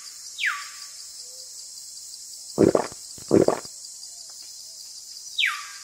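A steady, high cricket-like insect chorus. Twice, about half a second in and near the end, a whistle drops quickly and then holds a lower note. In the middle come two short, loud, low calls about a second apart.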